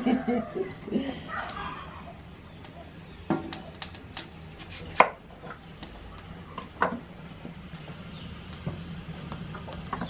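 Knife cutting green chiles on a wooden cutting board: scattered sharp taps of the blade striking the board, the loudest about five seconds in.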